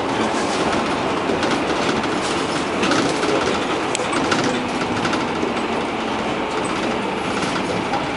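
Cabin noise inside a moving Ikarus city bus: steady engine and road noise, with frequent clatter and rattling from the body and fittings.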